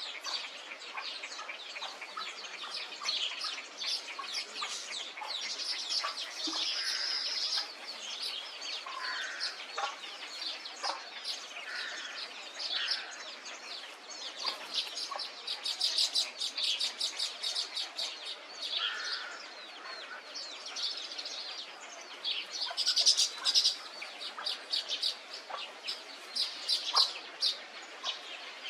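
A dense chorus of many birds calling at once: rapid overlapping chirps and chatter, with scattered short, lower calls among them.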